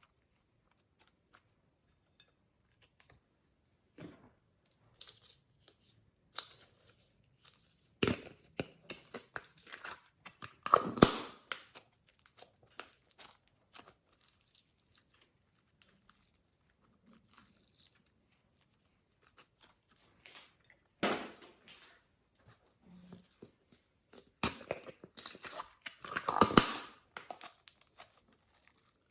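Glossy slime being squeezed, stretched and mixed by hand, giving sticky crackling and tearing sounds in irregular bursts. The bursts are loudest about eleven seconds in and again near the end, with scattered small clicks in between.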